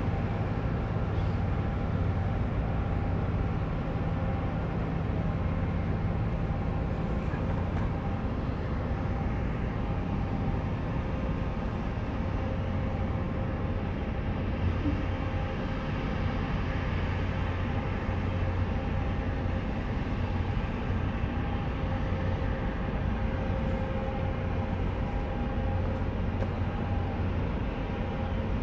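Steady low rumble of the heavy-lift crane vessel Bokalift 1's machinery as it manoeuvres slowly in harbour, with faint steady humming tones over it.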